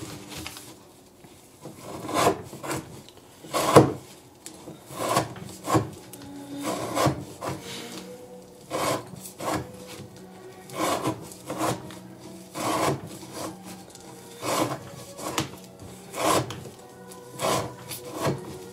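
Elmax-steel knife blade slicing through rope, one short cutting stroke after another, about one a second and often in pairs.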